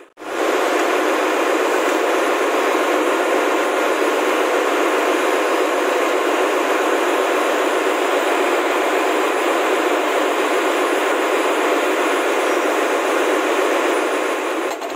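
Steady engine-room machinery noise from a ship's engine room: a constant, even roar with no rhythm and no distinct knocks.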